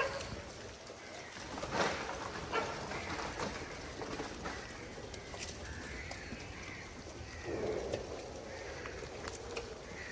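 Scattered animal noises and bird calls, with a few sharp clicks or knocks.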